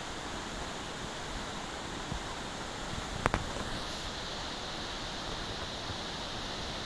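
Steady rushing of the Curug Cipendok waterfall's falling water, an even hiss with no changes, broken about three seconds in by two sharp clicks close together.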